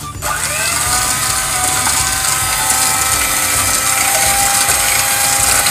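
Electric hand mixer running at speed, its twin beaters whipping coffee, sugar and water in a stainless steel bowl. It makes a steady motor whine that rises briefly in pitch just after the start.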